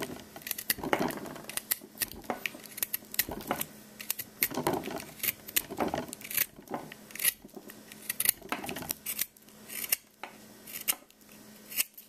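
Pocket knife blade whittling a wooden pencil to a point: a run of short, irregular scraping cuts as shavings come off.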